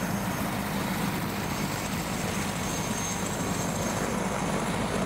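Helicopter running steadily on the ground with its rotors turning, a constant drone with no change in pitch.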